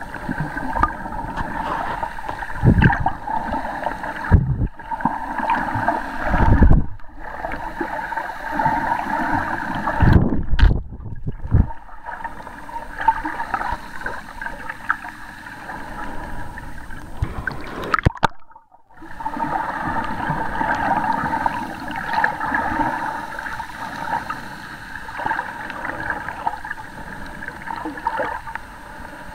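Muffled water noise recorded underwater through a camera's waterproof housing: steady gurgling with several low thumps in the first half and a few brief moments where the sound nearly cuts out.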